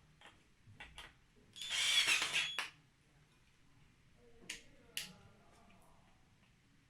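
Scattered clicks and knocks of the grinder kit's parts being handled, with one loud rasping burst about a second long near two seconds in, and two sharper clicks later on.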